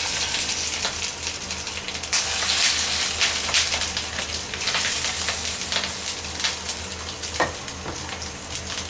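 Pieces of rohu fish roe sizzling in hot oil in a nonstick frying pan, a steady hiss with scattered pops and crackles. The sizzle swells about two seconds in as more pieces go into the oil.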